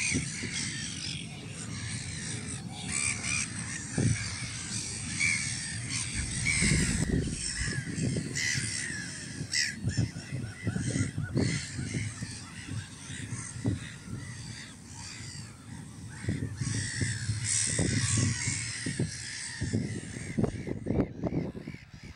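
Breeding colony of black-headed gulls calling, many harsh overlapping calls at once, over a low rumble.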